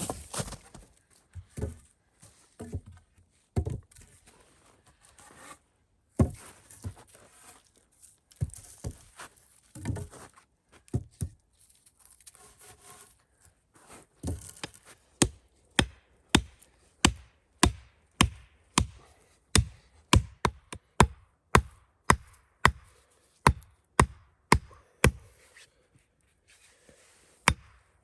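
Wood being chopped: scattered knocks and rustling at first, then about halfway in a steady run of sharp chopping strikes, about two a second.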